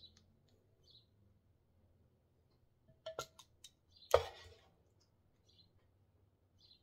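Metal kitchen tongs clicking a few times a little after three seconds, then one loud knock about four seconds in, as browned chicken drumsticks are lifted from an electric frying pan into a slow cooker crock.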